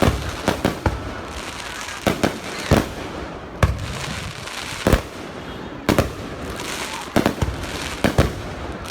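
Fireworks exploding: about a dozen sharp bangs at irregular intervals, sometimes two in quick succession, over a continuous background of noise.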